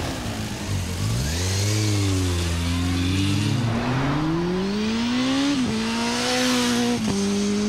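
Motorcycle engine accelerating hard, its pitch climbing and then dropping suddenly at two upshifts near the end.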